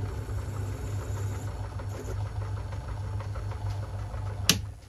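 Myford ML7 lathe running with a steady low hum while a grooving tool chamfers a bolt head. Near the end a single sharp click, after which the running noise drops away.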